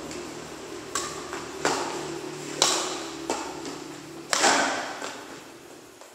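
Badminton rally: rackets striking a shuttlecock back and forth, about five sharp hits spread a second or so apart, with a couple of lighter taps between them, each hit ringing briefly.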